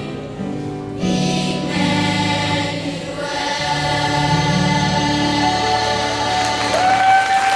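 Youth choir singing a gospel Christmas song in long held chords that change every second or two.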